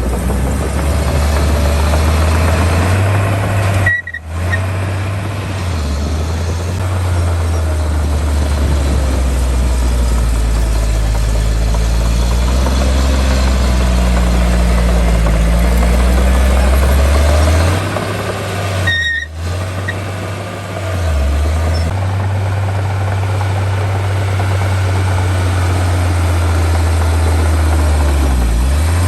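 Heavy diesel engines of earthmoving machinery running, a loud low drone that rises and falls with engine load. It breaks off for an instant twice, about four seconds in and again near the twenty-second mark.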